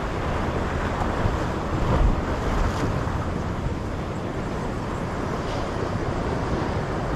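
Ocean surf washing against shore rocks, with wind rumbling on the microphone.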